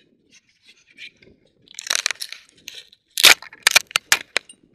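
Handling noise from a hand-held camera, with fingers and clothing rubbing and knocking right against the microphone. A rustling scrape comes about two seconds in, then one loud knock and a quick run of sharp clicks.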